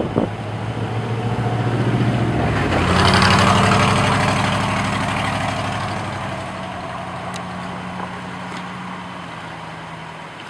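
A heavy truck's diesel engine running close by, growing louder to a peak about three seconds in, then slowly fading as it moves off.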